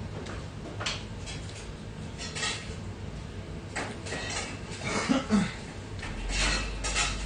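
Eating sounds over hot ramyeon: several short hissing blows and slurps at the noodles, with metal chopsticks clinking against the aluminium pot.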